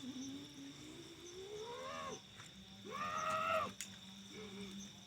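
Two drawn-out, cat-like wails: the first rises slowly in pitch over about two seconds, the second is shorter and higher, about three seconds in.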